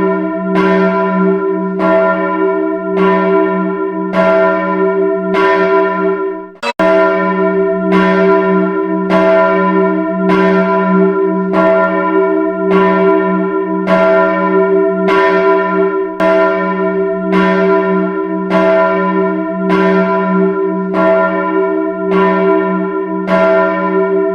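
A church bell tolling quickly, struck about every three quarters of a second. Each stroke rings on into the next, so the bell's hum never dies away. There is a momentary break about seven seconds in.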